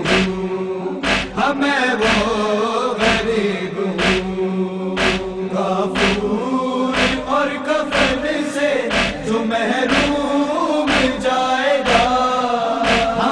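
Male voices chanting a noha, a Shia lament, a cappella over rhythmic chest-beating (matam), with one strike about every second.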